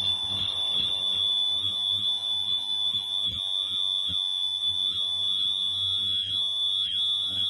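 Elastic-band face mask machine running: a steady high-pitched tone over a low machine hum.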